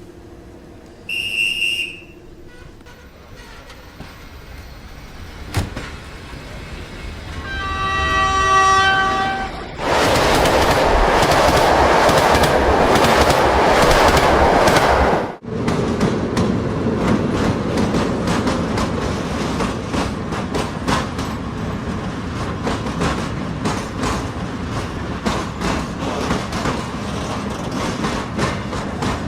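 A train horn sounds for about two seconds, then a train rushes past close by with a loud roar that cuts off suddenly. After that come a steady rumble and the clatter of train wheels over rail joints. A short high beep is heard about a second in.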